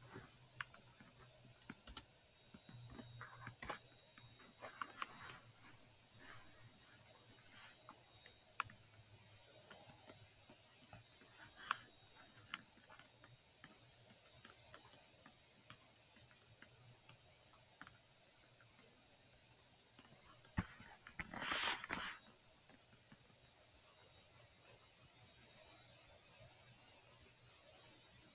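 Scattered computer mouse and keyboard clicks from someone working at a computer, with a louder rustling noise lasting about a second roughly three quarters of the way through.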